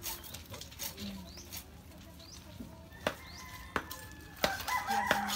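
Hand tools knocking sharply into earth and stones while post holes are dug, about seven knocks spread unevenly. A rooster starts crowing near the end.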